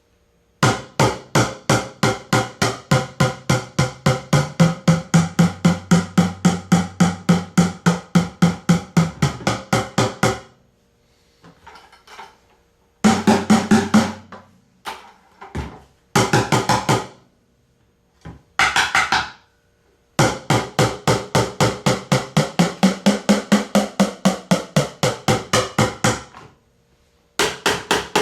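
A bucket drummed with fast, even strokes, about four a second, in two long runs of several seconds with shorter bursts and pauses between.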